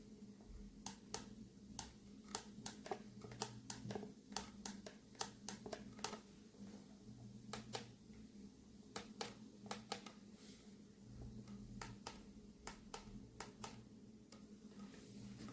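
Faint, irregular clicks and taps of small objects being handled, over a low steady hum.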